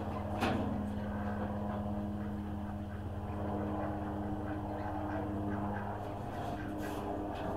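A steady low mechanical hum, like an engine or motor running, with a couple of short clicks about half a second in.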